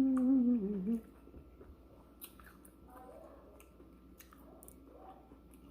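A person chewing loaded tortilla-chip nachos, with soft mouth sounds and a few sharp little crunches. It opens with a loud wordless hum of the voice, about a second long, wavering in pitch.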